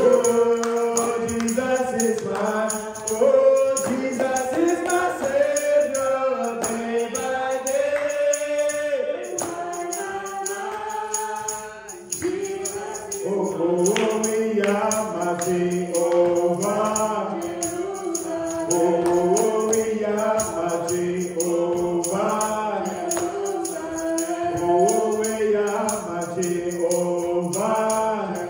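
A group of voices singing a worship song over a steady percussion beat; the singing breaks off briefly about twelve seconds in, then carries on.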